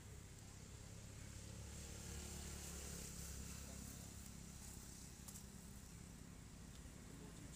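Faint outdoor background: a low steady rumble with a thin high hum above it, and no distinct event.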